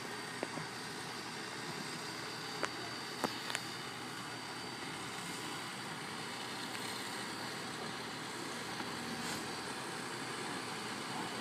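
Steam locomotive No. 126 working slowly toward the listener, heard as a steady hiss with a faint high tone, with a few sharp clicks in the first four seconds.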